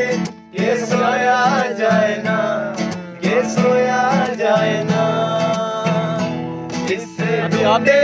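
Acoustic guitar strummed while men sing a song together, with two short breaks between sung phrases.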